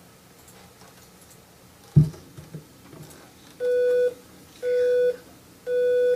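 Three identical electronic test beeps, steady mid-pitched tones about half a second each and about a second apart, played from a computer's speaker as test sounds for a cochlear implant. A single sharp knock comes about two seconds in, before the beeps.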